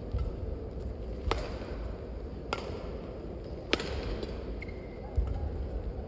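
Badminton racket hitting a shuttlecock three times, about a second and a quarter apart, in a rally, with sharp cracks over the low hum of the hall.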